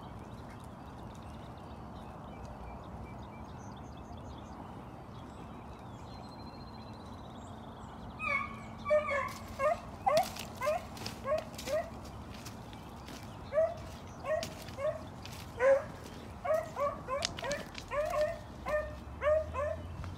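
Beagles baying on a rabbit's trail: short, quick bay notes, a few a second, starting about eight seconds in and growing denser toward the end.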